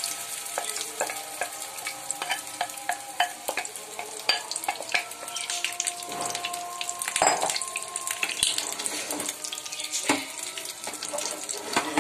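Beaten egg and soya chunk mixture sizzling in hot oil in a non-stick frying pan, just poured in to fry. A wooden spatula scrapes and taps against the pan many times as the mixture is spread.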